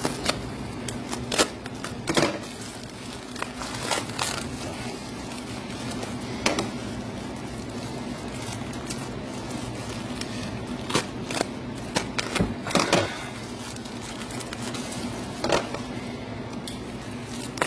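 Plastic bubble wrap crinkling and crackling, with scattered sharp clicks, as it is cut with a razor knife and pulled off an oily brake accumulator. A steady low hum runs underneath.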